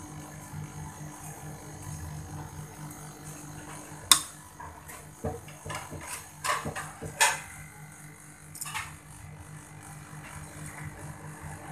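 Kitchen handling clatter at a pan of mango pickle: a few sharp clicks and knocks between about four and nine seconds in, the first the loudest, over a steady low hum.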